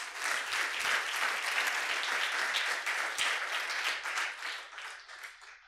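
Audience applauding, many hands clapping together. It builds quickly at the start, holds steady, then thins out and dies away over the last second or two.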